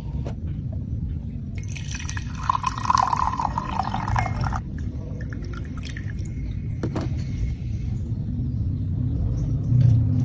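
Water being poured into a vessel for about three seconds, starting just under two seconds in, over a steady low rumble.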